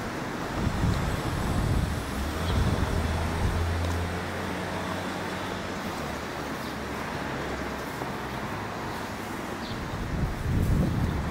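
Outdoor street ambience: a steady background of distant traffic, with wind gusting on the microphone about a second in and again near the end. A low steady hum sits under it for the first few seconds.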